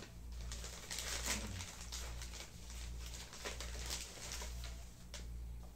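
Thin plastic shopping bag and clear plastic packaging rustling and crinkling as a hand rummages and pulls items out, over a low pulsing hum.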